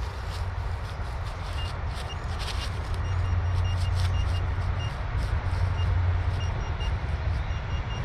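Handheld metal-detector pinpointer giving short, high beeps, irregular and in quick runs, as it is worked over a shallow target, with scrapes in the soil. A steady low rumble lies under it all and is the loudest part.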